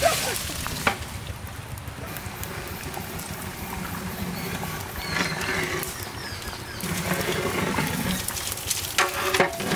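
Quail eggs tipped from a large metal tray into a big pot of spice paste, landing with a loud clatter at the start. A long ladle then stirs them, scraping and knocking against the pot.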